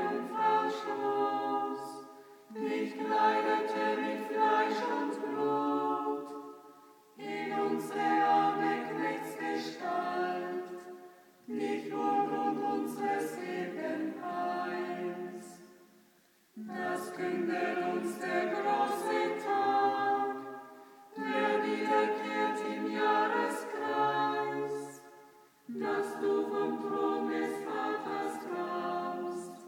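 Small group of monks and nuns singing Compline, the Catholic night prayer, a cappella in chanted phrases of a few seconds, with a short breath between each.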